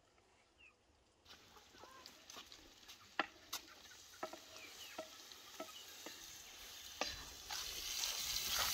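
Chopped tomatoes and peppers tipped off a wooden board into a hot iron pan over charcoal, with a run of sharp knocks of a wooden spatula against the metal as the vegetables are stirred. Frying sizzle builds to a steady hiss over the last couple of seconds, and a few faint bird chirps come through.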